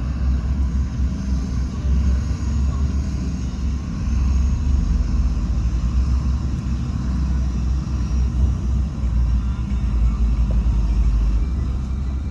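Heavy diesel earthmoving machinery running steadily, a loud continuous low rumble that swells and dips a little.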